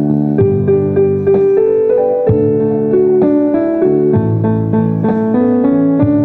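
Keyboard music in a piano sound playing a melody over held bass notes, each note starting sharply.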